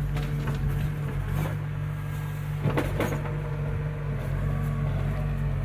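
Diesel engine of a JCB 3DX backhoe loader running steadily, with a few knocks and clanks from the machine, loudest about three seconds in.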